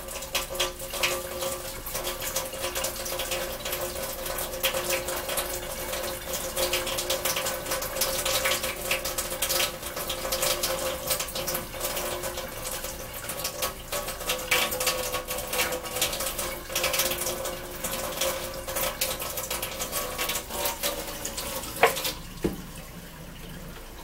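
Kitchen faucet running into a stainless steel sink while water poured from a large plastic cup splashes over hair, an even hiss with spattering. About 22 seconds in there is a sharp clunk and the sound of running water drops away.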